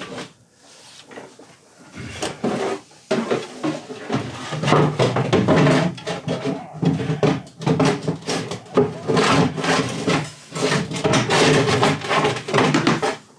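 A heavy loose rear axle being dragged and shifted across the garage floor: repeated scraping and rubbing in uneven pulls, with knocks and clunks as it moves.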